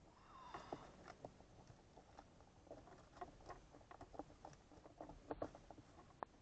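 Near silence with faint, irregular small clicks, taps and a brief squeak: handling noise from a camera being shifted about inside a car.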